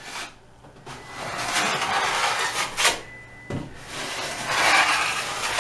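Wide drywall knife scraping joint compound across a plaster wall in two long strokes, with a sharp click between them.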